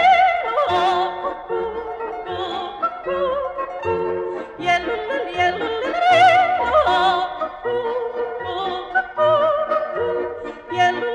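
Tyrolean yodel song: a woman's high solo voice sings with wide vibrato over held backing chords and a regular low bass beat.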